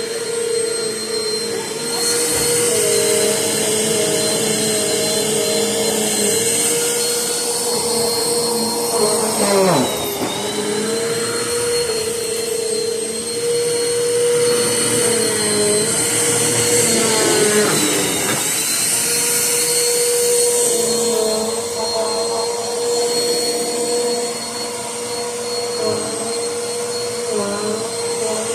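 Vacuum cleaner running with a steady whine and airflow hiss. Its pitch dips briefly twice, about a third of the way in and again just past halfway, as the motor is loaded.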